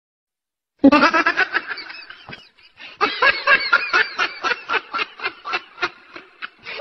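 A person laughing in a long run of quick, pulsing bursts. It starts suddenly about a second in, after silence, and pauses briefly midway.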